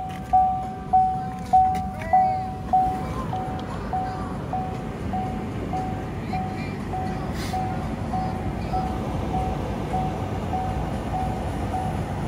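Chevrolet Bolt EV's door-open warning chime: one steady tone repeating about every 0.6 s, loud for the first few chimes and softer from about three seconds in. The car radio plays music faintly underneath.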